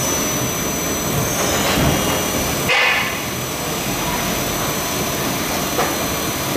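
Hwacheon twin-spindle, twin-turret CNC lathe running in cycle: steady loud machine noise with a high steady whine, a falling whine about a second and a half in, and a brief hiss about three seconds in as a turret rapids into position.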